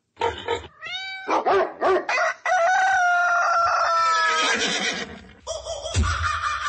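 Recorded animal calls played as a sound effect: a short call that rises in pitch about a second in, then one long call that falls slowly in pitch over nearly two seconds.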